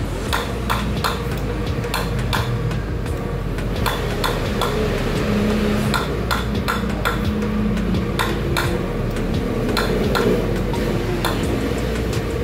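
Irregular light metallic clicks and taps, roughly one or two a second, over a steady low hum, from gas-torch work on a car's exhaust pipe.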